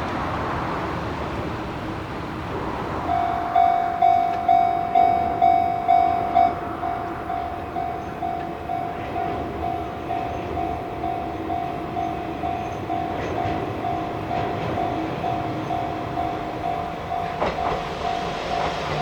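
Railway level-crossing warning bell, starting about three seconds in and ringing about twice a second, loud at first and then softer, over the noise of a train on the line.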